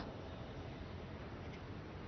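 Faint steady background hiss with a slight low hum; no distinct sound stands out.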